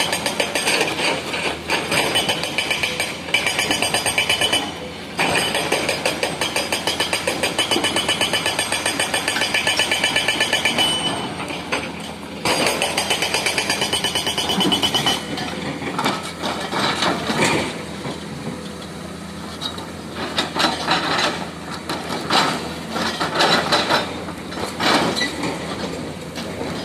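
Komatsu excavator's hydraulic breaker hammering in a rapid stream of blows, stopping briefly twice. About halfway through it gives way to quieter, irregular knocks.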